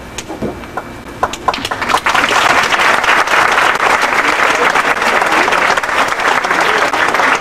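Large crowd applauding: a few scattered claps at first, swelling into full, sustained applause about two seconds in.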